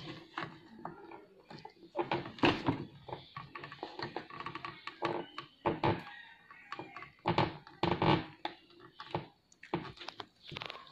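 Irregular clicks and knocks from a motherboard being handled and worked with a soldering iron while a solid capacitor is desoldered, a dozen or so sharp knocks at uneven intervals, the loudest about two and a half seconds in and again about eight seconds in.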